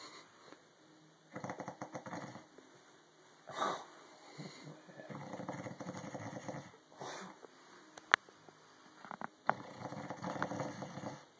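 A man snoring loudly in his sleep: three long rattling snores with two short noisy breaths between them. Two sharp clicks in the last third, the first the loudest sound of all.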